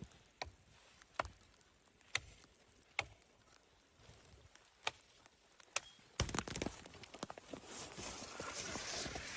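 Sharp single crunches in snow, about one a second. About six seconds in, a denser, continuous crunching and rustling starts and grows louder.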